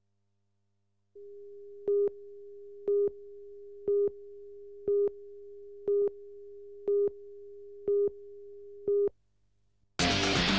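Broadcast countdown-leader tone: a steady low tone with a louder beep once every second, eight beeps, which stops about nine seconds in. Rock music with guitar starts near the end.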